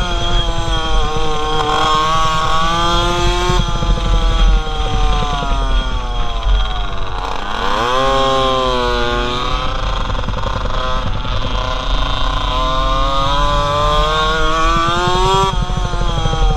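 Onboard sound of a Polini racing minibike's small engine revving hard, its pitch climbing under acceleration, dropping sharply about seven seconds in as the throttle is shut for a corner, then climbing again out of the turn.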